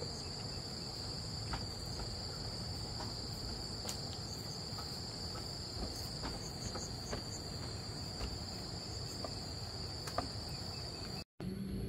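Insects chirring in a steady high-pitched drone, with a fainter, higher band above it and a few faint clicks, over a low background rumble. It cuts off abruptly near the end.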